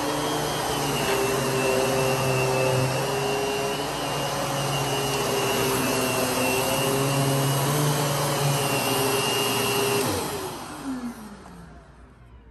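Kenmore BC4027 canister vacuum cleaner running steadily, then switched off about ten seconds in, its motor winding down with a falling pitch.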